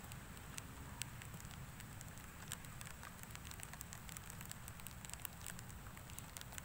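Faint, irregular crackling and popping of green weeds smouldering in a pot, over a steady low rumble.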